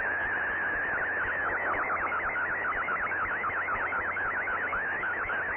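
Air traffic control radio frequency held open by a stuck microphone: hiss with a steady high tone that breaks into a rapid warbling squeal about a second in.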